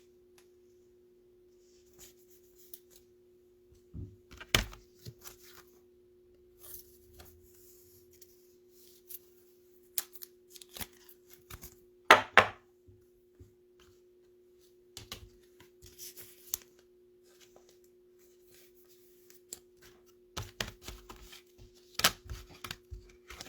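Trading cards being handled and slid into plastic sleeves and rigid top loaders: scattered rustles, slides and light clicks, with a sharper pair of clicks about halfway through. A faint steady hum runs underneath.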